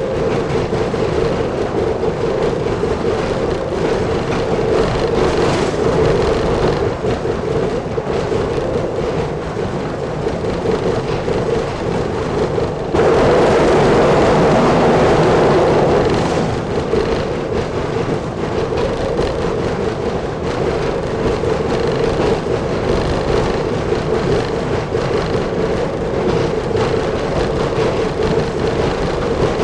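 Nambu Jūkan Railway Kiha 10 rail bus under way: its diesel engine runs steadily with the running noise of the wheels on the track. About halfway through it turns suddenly louder for about three seconds, then drops back.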